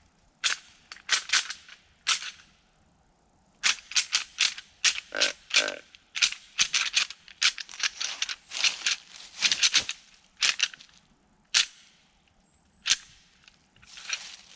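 Deer rattling bag worked by hand in irregular bursts of sharp clacking, imitating whitetail bucks sparring. There is a long dense flurry in the middle and two single clacks near the end.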